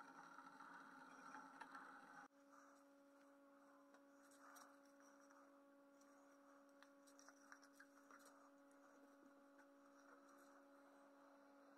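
Near silence: a faint steady hum, with light scratchy rubbing of a cloth now and then.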